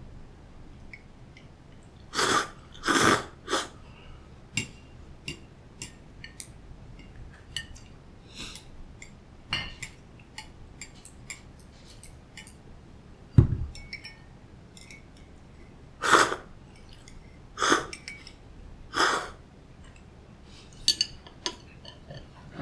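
Cold soba noodles being slurped in short, loud bursts: three in quick succession a couple of seconds in, and three more later, with chewing and small clinks of chopsticks on crockery between them. A single dull knock of a dish on the table comes about halfway through.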